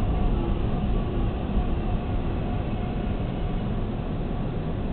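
Subway train running on the rails, heard from inside the passenger car: a steady low rumble and rail noise that eases slightly over the first couple of seconds, then holds steady.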